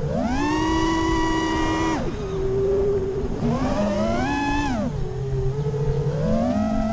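FPV freestyle quadcopter's T-Motor 2305 2450kv brushless motors and propellers whining, the pitch following the throttle. It climbs sharply just after the start and holds, drops to a lower drone at about two seconds, surges again around four seconds and falls back near five, then rises once more near the end.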